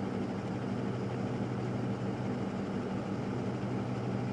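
A truck engine idling steadily, an even low hum with no change in speed.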